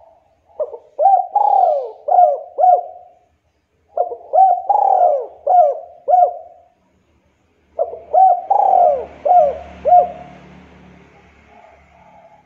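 Spotted dove cooing: three phrases of about five notes each, every note a quick looping coo, with short pauses between phrases.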